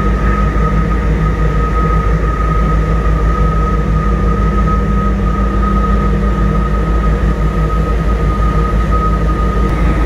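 Steady, loud industrial machinery drone with a constant high-pitched whine running through it: the mixed running noise of the ship's generator plant and the container-terminal machinery working below.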